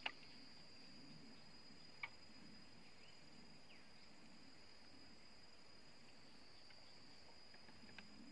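Near silence with a faint, steady high-pitched insect drone, and a small click about two seconds in and another near the end.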